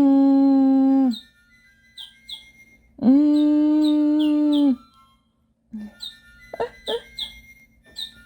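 A baby making two long, steady, held vocal sounds, each about a second and a half, one at the start and one about three seconds in, with short high chirping beeps between and after them and a few clicks near the end.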